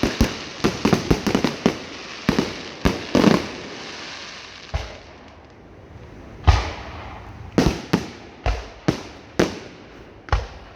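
Fireworks display: shells bursting with sharp bangs. A quick volley of bangs comes in the first few seconds, then a lull, then single bangs follow about every half second to a second.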